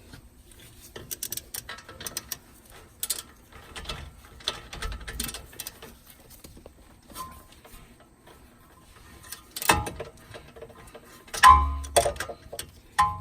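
Hand tools and brake parts being worked on a car's front wheel: scattered light clicking and metal clinks, with a few louder metallic knocks that ring briefly near the end.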